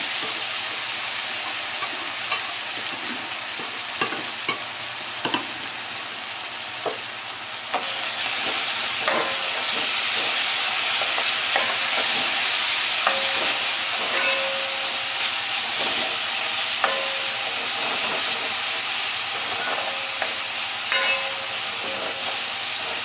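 Curry paste frying with onions in hot oil in a metal pot, a steady sizzle that grows louder about eight seconds in. A metal spoon scrapes and knocks against the pot as the paste is stirred.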